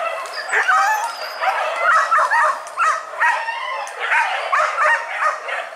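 A pack of boar-hunting dogs barking and yelping in the brush, many high, short cries overlapping several times a second.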